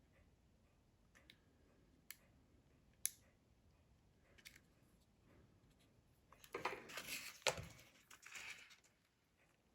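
Small hand tools and parts being handled during smartphone repair: a few faint, sharp clicks, then about two seconds of scraping and rustling with one louder click in the middle of it.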